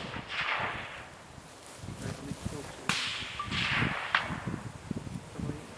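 A shot from a Blaser R93 rifle in .338 Lapua Magnum: a sharp crack about three seconds in, its report rolling back as an echo for about a second, then a shorter sharp crack. In the first second, the echo of a shot fired just before fades away.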